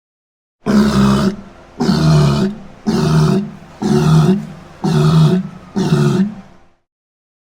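Designed creature sound effect for a jaguar–cameleopard hybrid: a run of six loud, grunting roars about a second apart, each starting sharply and fading, ending about a second before the end.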